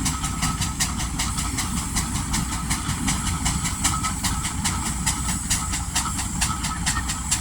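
A heavy-haulage vehicle's engine running steadily: a low rumble under an even, rapid beat of about five hissing ticks a second.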